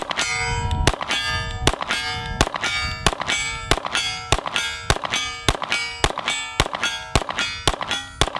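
Staccato C2 9mm pistol fired at a steady pace, about fourteen shots, roughly one every half second or so, each answered by the ring of a steel target being hit.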